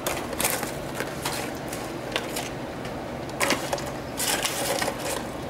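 Hands and a fork mixing shredded pork into fried potatoes in a disposable aluminium foil pan. The foil makes irregular crinkles and scrapes, a few per second.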